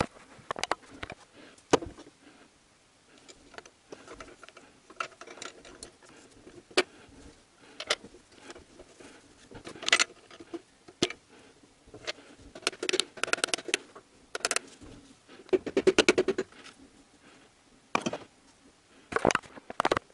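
Metal hand tools clinking and knocking on engine parts while pistons and connecting rods are fitted into a VAZ 2111 block. The knocks are irregular, with a few quick rattling runs of clicks.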